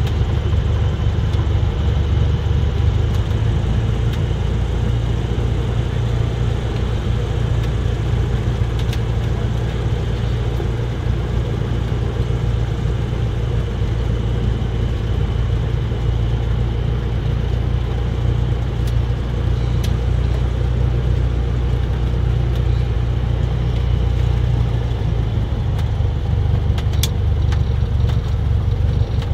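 Cessna 172's piston engine running at low power while taxiing, heard inside the cabin as a steady, even, low drone.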